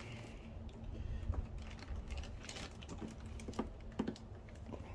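Scattered light clicks and taps of hands gripping and turning a 12-inch car subwoofer, with faint rustling of its plastic wrap, over a steady low rumble.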